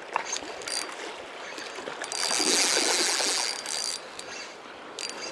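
Spinning reel being cranked to retrieve the line, its gears whirring and clicking, louder for about two seconds in the middle. A river runs over stones underneath.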